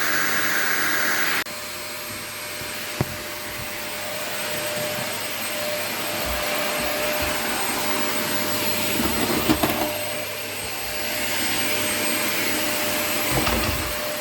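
Vacuum cleaner running steadily, its sound dropping suddenly about a second and a half in, with a sharp click near three seconds and a few knocks later on.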